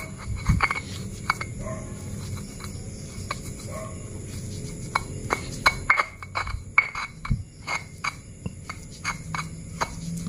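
Stone pestle mashing tempeh in a flat stone mortar (ulekan and cobek): irregular knocks and scrapes of stone on stone, one or two a second.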